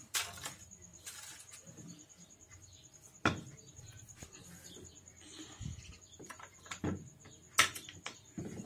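Scattered small metal clicks and knocks from parts of a dismantled Maruti Zen steering rack being handled on a concrete floor, the sharpest about three seconds in and near the end, over a faint steady high tone.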